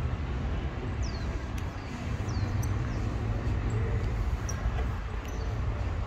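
Open-air ambience: a steady low rumble under a general hiss, with a few short, high, quickly falling bird chirps in the first half.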